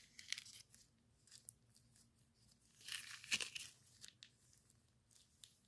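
Faint rustling and light clicks from hands handling a small model and its packaging, with a louder crinkly burst about three seconds in.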